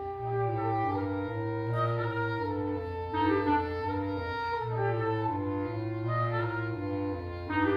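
A woodwind quintet playing live chamber music: several sustained wind parts move together through changing chords over a low held bass line.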